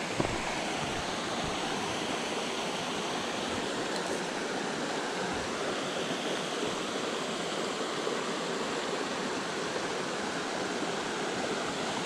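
Small rocky mountain stream rushing and splashing over boulders in a steady, even rush of water, with one short knock just after the start.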